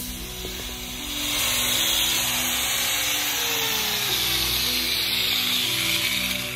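Angle grinder with a cut-off wheel cutting expanded metal mesh, a loud, steady, hissing grind, with a whine that falls in pitch around the middle. Background music plays underneath.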